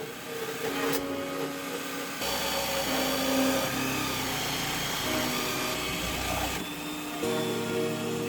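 Workshop power tools running steadily, in several short clips that cut abruptly from one to the next.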